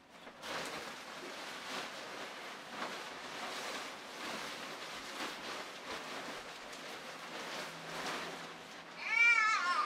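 The electric blower fan of an airblown Halloween inflatable starts about half a second in and runs steadily with a rush of air, while the nylon fabric rustles and crinkles as it fills. Near the end comes a brief, loud, wavering high-pitched sound.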